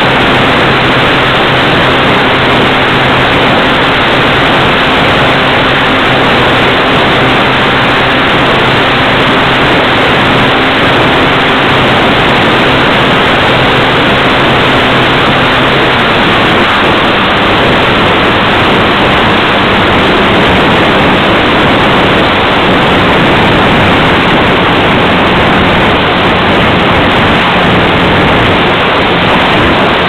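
Loud, steady rush of wind over the onboard camera's microphone of an electric RC trainer plane in flight, with the faint hum of its Turnigy G46 brushless motor and propeller underneath. The hum changes pitch about halfway through.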